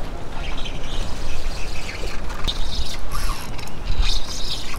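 13 Fishing Axum spinning reel being cranked, its gears turning as a jig is reeled in.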